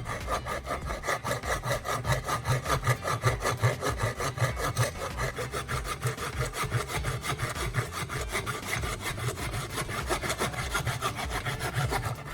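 Handsaw cutting through a small block of wood in a steady back-and-forth rhythm of about three strokes a second, stopping near the end.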